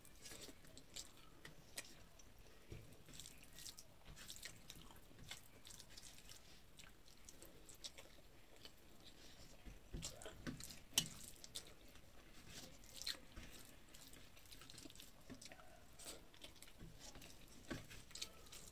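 Faint close-up eating sounds: a person chewing mouthfuls of rice, with soft wet smacks and scattered small clicks, and fingers working rice on a steel plate. One sharper click stands out about eleven seconds in.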